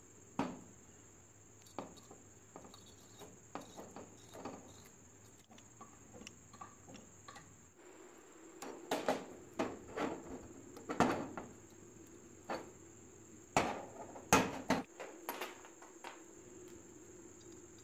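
Small steel parts of a Tokarev TT-30 pistol clicking and knocking against each other and the bench as they are handled and fitted. The taps are faint and scattered at first and become louder and more frequent in the second half.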